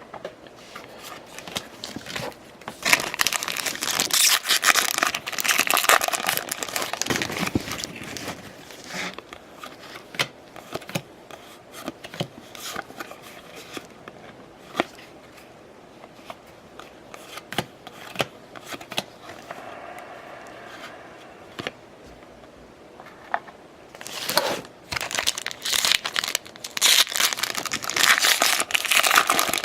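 Foil wrappers of baseball card packs being torn open and crinkled, in two spells of loud rustling: about three seconds in and again from about twenty-four seconds on. Between them, scattered small clicks and soft rustles.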